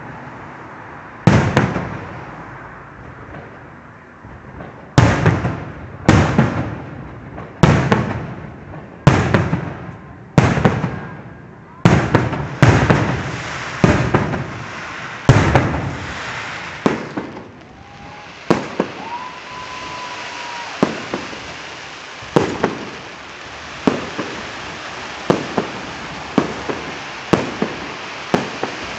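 Fireworks display: heavy shell bursts booming about once a second, each trailing off in a rolling echo, giving way in the last third to lighter, quicker crackling pops. A short steady whistle sounds about two thirds of the way through.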